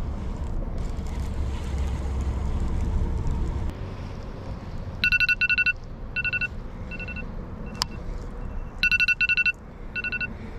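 Electronic alarm beeping on two fixed pitches, in quick bursts and single beeps, signalling that fishing time is over (lines out). It starts about halfway in, after a steady low rumble, and a sharp click falls between the bursts.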